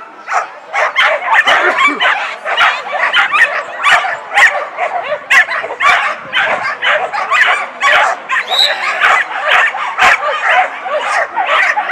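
Several dogs barking and yipping excitedly at once, with dense, overlapping sharp calls several times a second and no let-up.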